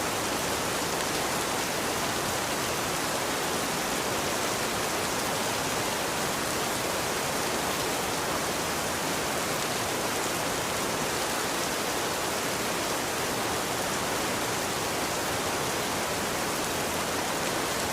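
Steady rain: an even hiss with no single drops standing out and no change in level.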